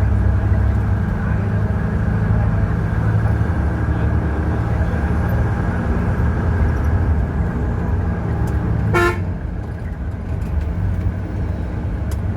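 Ashok Leyland bus diesel engine running steadily under load with a deep drone. A short vehicle horn honk about nine seconds in, after which the engine sound eases off a little.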